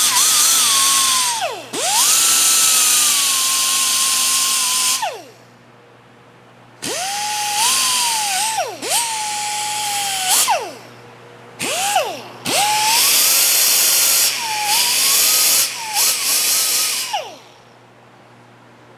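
Handheld grinder grinding a steel vise jaw in about five bursts. The motor whine sags in pitch as the wheel bites and recovers, and the tool spins down between passes.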